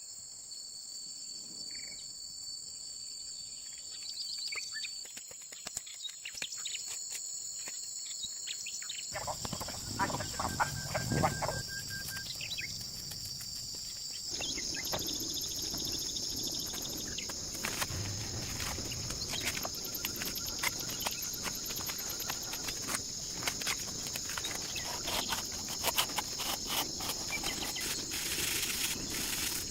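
A steady high-pitched insect chorus, with scattered light clicks and taps over it. The background changes abruptly about nine seconds in and again near fourteen seconds.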